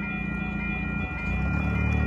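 Steady whine of several held tones over a low rumble at a light-rail crossing as the gates lift. A car's engine and tyres grow louder from about halfway through.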